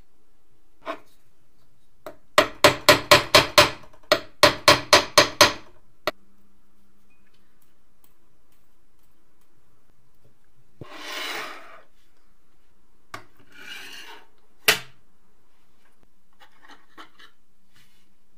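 Small hammer tapping a rivet on a bench vise's anvil: two quick runs of about six sharp metallic taps, roughly four a second. Later comes a brief scraping rub, then a single sharp knock.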